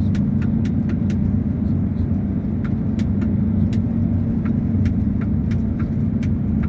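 Diesel engine of heavy construction machinery running steadily, a low even rumble, with irregular sharp clicks and rattles over it.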